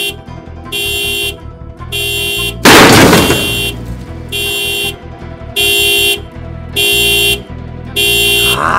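Car horn blaring in regular blasts about once a second, the pulsing pattern of a car alarm set off by the crash, getting louder about halfway through. About three seconds in, a short loud crash cuts across it.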